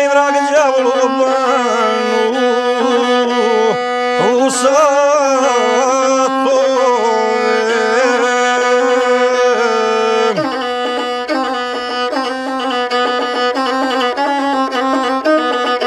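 Gusle, the single-string bowed Balkan folk fiddle, played solo in quick, ornamented runs over a steady low note.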